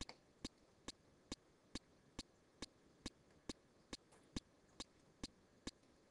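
Faint, sharp clicks at an even pace, a little over two a second.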